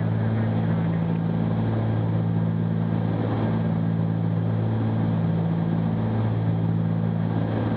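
Steady cockpit drone of the Cessna 310Q's twin piston engines and propellers in cruise, heard through the intercom audio feed, with an even low hum and hiss that does not change.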